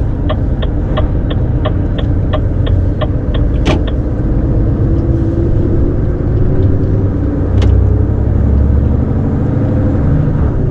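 Lorry engine running, heard from inside the cab, with the turn-signal indicator ticking about three times a second for the first three and a half seconds. The engine pulls harder for a moment around two-thirds of the way through.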